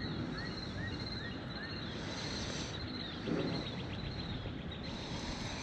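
Small birds calling in short, repeated chirps over steady wind and outdoor noise, with a quick trill of notes around the middle; a soft bump about three seconds in.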